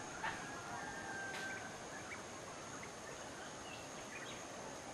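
Faint outdoor background: a steady hiss with a thin high steady tone, and a few short, faint bird calls scattered through it.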